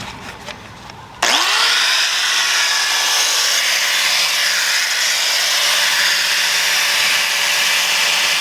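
An angle grinder switches on about a second in and then grinds steadily against a car's rusted, thin steel quarter panel, a loud, even hissing grind that holds without pause.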